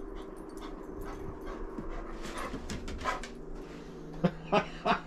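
A griffon dog panting after running in the snow: quick breaths that grow louder near the end, about three sharp ones a second.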